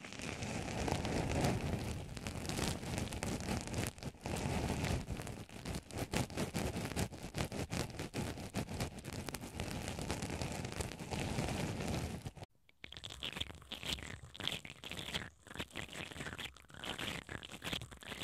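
A black cotton swab poking and scratching into white foam pieces placed over a pair of microphones, giving dense, close-up crackling scratches. About twelve seconds in this stops abruptly, and a spiral brush twisted inside a hollow wooden ball on the microphones takes over with thinner, drier crackling.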